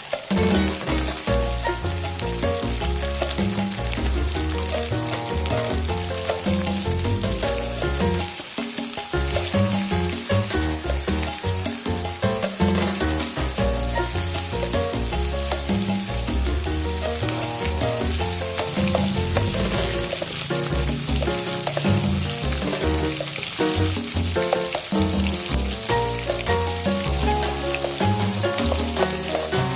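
Food sizzling as it fries in hot oil in a pan, a steady hiss throughout. Background music with held low notes plays underneath.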